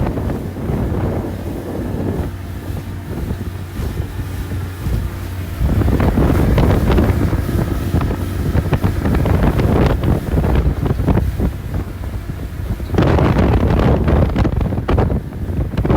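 Strong wind buffeting the microphone as a loud, low rumble that swells in long gusts, strongest from about six seconds in and again near the end.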